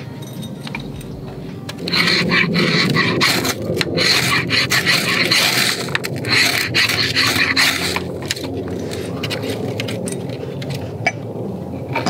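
A ferrocerium fire-steel rod scraped hard with a metal striker, a run of rasping strokes for several seconds that stop about two-thirds of the way in. The strokes throw sparks onto wood shavings to light a campfire.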